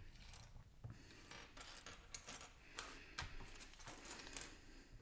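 Loose LEGO bricks being handled and sorted by hand: a scatter of faint, small plastic clicks and rattles at irregular intervals.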